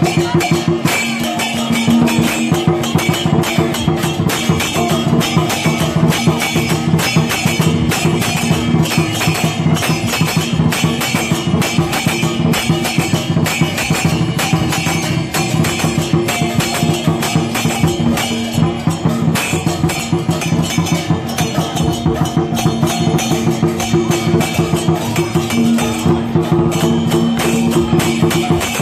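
Teochew dragon dance percussion band playing: drum, cymbals and gongs beating a fast, dense, unbroken rhythm, with gongs ringing underneath.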